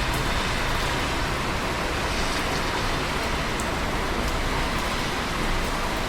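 Steady, heavy rain falling, a constant even hiss with a few faint drip ticks.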